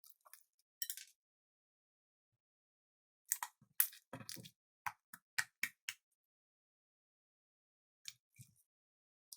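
Slime being squished and poked by hand, giving scattered sticky crackles and pops: a short burst about a second in, a quick run of about eight in the middle, and a few more near the end.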